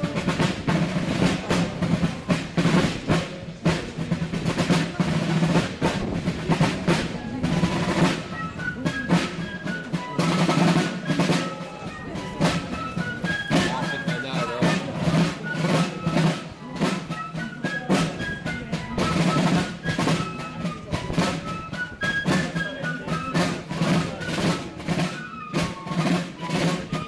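Fife and drum corps playing: side drums beat rapid strokes and rolls throughout, and fifes join with a high, quick melody about eight seconds in.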